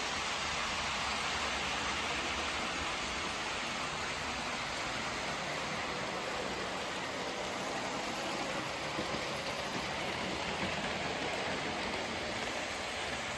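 Hornby 00 gauge model trains running round the layout: a steady whirring hiss of small electric motors and wheels on the track.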